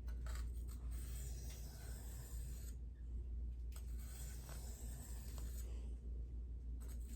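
Knife blade being drawn across a sharpening stone: long, even scraping strokes of about two seconds each, three passes with short pauses between them.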